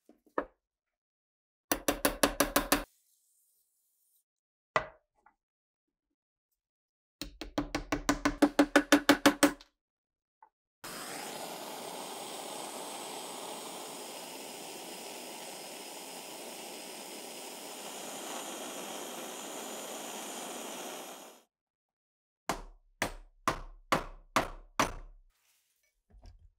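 Rusty steel being scraped with a metal blade in two spells of rapid strokes. Then a handheld gas torch hisses steadily for about ten seconds while heating a rusted part. Near the end come about seven sharp knocks of metal being struck.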